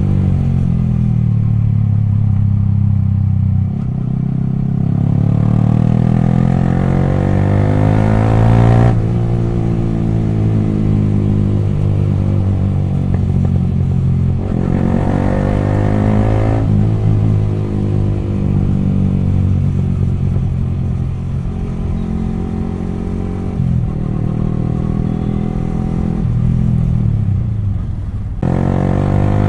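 Yamaha R15 V3's 155 cc single-cylinder engine running through an exhaust with both dB killers removed, very loud while riding. The pitch climbs under acceleration and drops at gear changes, with strong pulls at about four and fourteen seconds in.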